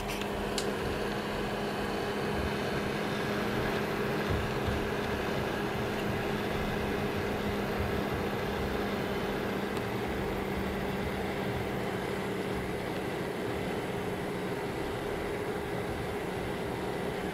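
CPU cooler fan on a desktop PC running steadily: an even whir of air with a low hum.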